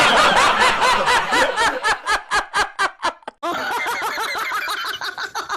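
Cartoon character laugh sound effects, two in a row: a loud run of quick "ha-ha" pulses that breaks into separate short bursts, then about three and a half seconds in a second, quieter laugh of rapid pulses.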